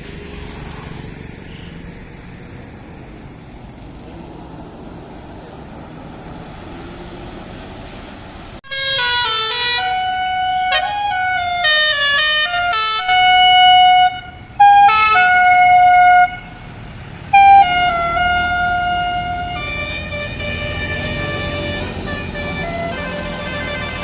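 A tour bus's multi-note telolet (basuri) horn playing a tune in stepped notes, some of them held, over steady traffic noise. The horn starts suddenly about a third of the way in, is the loudest sound, and grows quieter near the end.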